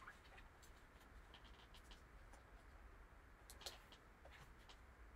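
Near silence, with a few faint ticks and rustles of gloved hands handling a trading-card box; the clearest tick comes about three and a half seconds in.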